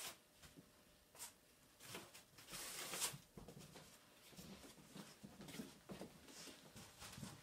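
Foam packing wedges being pulled out from between glass panels in a wooden crate: faint rustling and scraping, with a longer scrape about two and a half seconds in.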